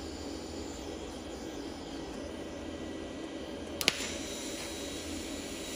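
Lift-start TIG welding on mild steel: a steady soft hiss, then a single sharp crack just under four seconds in as the tungsten is touched to the metal and lifted to strike the arc, after which the arc burns on with a steady hiss.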